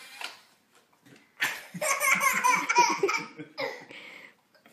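Baby laughing out loud, with a man laughing along: a long burst of laughter starting about a second and a half in, then a shorter one.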